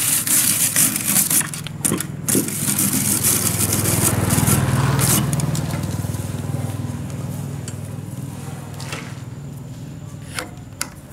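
An engine hum that grows louder about four seconds in and then slowly fades, with scraping and crunching sounds in the first few seconds.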